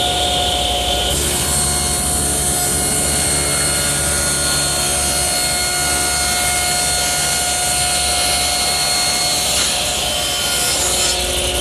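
Table saw ripping a sheet of half-inch cabinet-grade plywood: the blade's steady whine, with the rasp of the cut through the plywood from about a second in until near the end.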